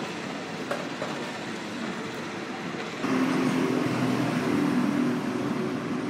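Steady outdoor traffic noise. About three seconds in it grows louder, with a low engine hum on top.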